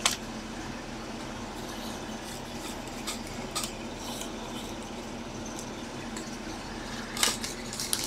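A few sharp clicks and taps of hard plastic card holders being handled and set down on a table, over a steady low hum.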